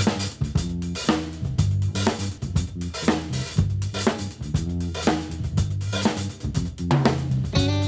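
Live band playing a funk groove: drum kit with snare, kick and hi-hat strokes over a stepping bass line.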